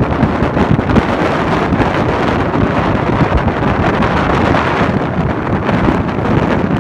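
Loud, steady wind rushing over the microphone in a moving open-top Mazda Miata, with the car's road noise underneath.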